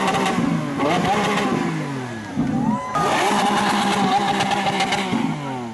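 Lamborghini Aventador's V12 being revved while standing still: the revs climb about a second in and fall back, then climb again near three seconds, are held high for about two seconds and drop away near the end.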